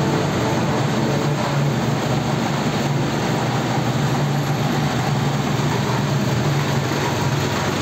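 Steady running noise of a moving vehicle: an even noise over a low hum, without change.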